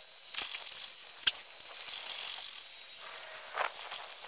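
Hand chisel cutting and paring a groove in a wooden board: short scraping strokes of the blade against the wood with a few sharp clicks, the loudest about a second in.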